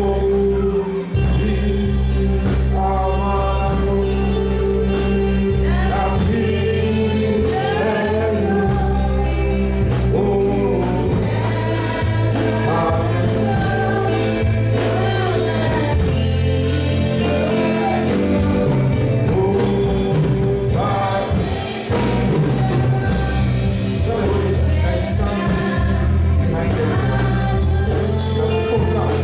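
Gospel music with singing over a steady beat and a strong bass line.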